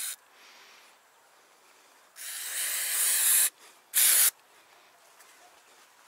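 Aerosol can of brake cleaner spraying onto hydraulic hose quick-connect fittings to clean them: a faint short hiss near the start, a longer spray of just over a second that grows louder, then a short burst.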